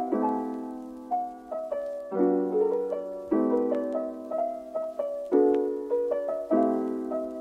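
Soft background piano music: sustained chords, with a new one struck about once a second.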